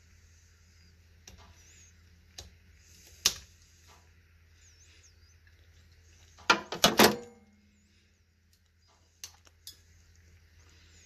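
Sharp small plastic clicks from a Mitsubishi key fob being handled and opened for a battery change. A louder burst of rattling clicks comes near the middle.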